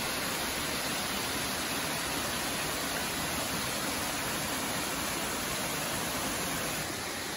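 Small mountain waterfall and stream cascading over rocks: a steady rush of water, a little quieter near the end.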